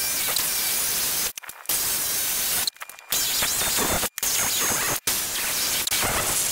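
Corded jigsaw sawing through a thick treated-lumber board, a loud, steady rasping buzz as the blade cuts a curved, angled bevel along the board. The sawing breaks off abruptly for a moment about four times and starts again.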